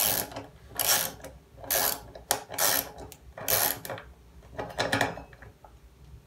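Ratchet wrench clicking in short bursts about once a second, about six times, as it runs down the bolt on a washing machine's drum pulley. The strokes grow weaker near the end.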